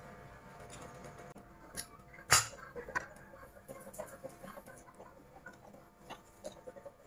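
Eating sounds: chewing, and small clicks of chopsticks against a glass bowl, with one sharp clack about two and a half seconds in.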